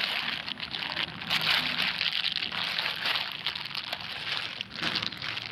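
Big, old plastic crinkling and rustling as it is pulled free of vegetation and handled, a continuous run of crackles.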